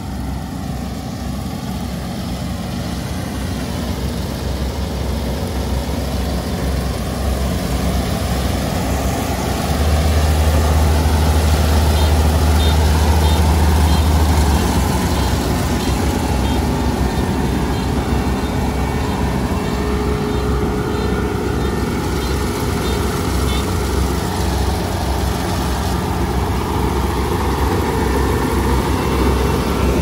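Kubota ER470 combine harvester's diesel engine running steadily as it cuts rice, getting louder as the machine draws close and loudest for a few seconds about a third of the way in.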